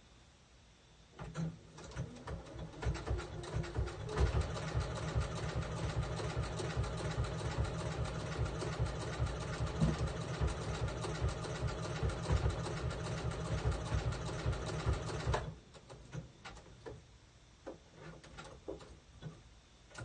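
Sewing machine stitching a blanket stitch on applique: it starts in slow stops and starts about a second in, then runs steadily at speed with rapid, even strokes from about four seconds, and stops suddenly near three-quarters of the way through. A few light clicks follow.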